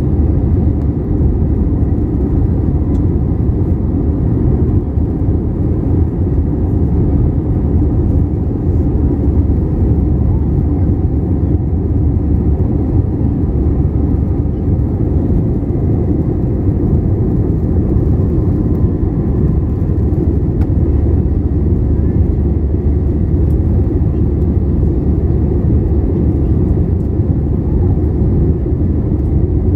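Airbus A321 in flight, heard from inside the cabin: a steady low roar of jet engines and rushing air that holds an even level throughout.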